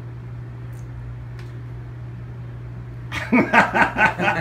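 A steady low room hum with no voices for about three seconds while the beer is sipped, then men break into chuckling and laughter near the end.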